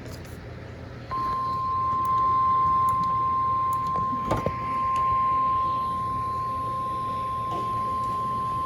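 NOAA Weather Radio 1050 Hz warning alarm tone: one steady, high, unbroken beep starting about a second in, the signal that a weather alert, here a tornado watch, is about to be read.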